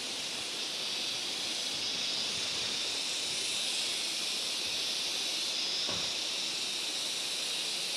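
Steady high-pitched insect chorus of cicadas shrilling in the surrounding trees, an unbroken hiss with no pauses.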